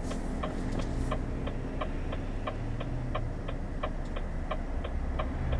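Lorry's turn-signal indicator ticking steadily inside the cab, about three ticks a second, over the low hum of the idling diesel engine as the truck waits at a roundabout junction.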